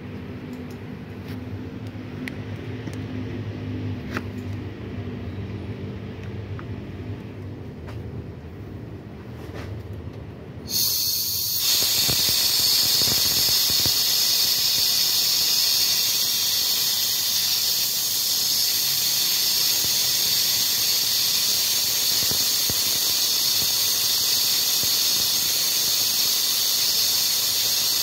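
A low steady hum, then about eleven seconds in a vacuum tool switches on with a loud, steady, high-pitched hiss, sucking the soaked carbon-cleaning fluid back out of the engine's combustion chambers.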